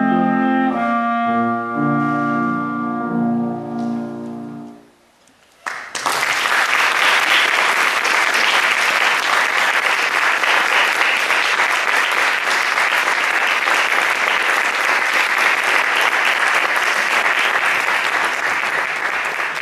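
Clarinet and grand piano hold a final chord that fades out over the first four and a half seconds. After a brief silence, an audience starts applauding about six seconds in and keeps clapping steadily.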